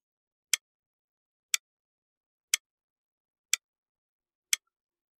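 Clock-tick sound effect counting down the seconds for a quiz answer: five sharp ticks, one each second, with dead silence between them.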